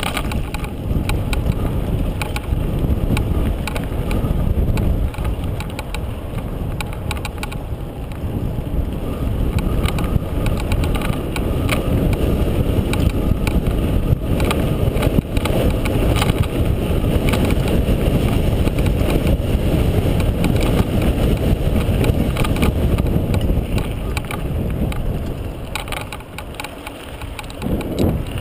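Mountain bike rolling down a dirt singletrack: steady wind rush on the action-camera microphone, with tyre rumble and frequent rattling clicks from the bike over bumps. The noise eases briefly near the end.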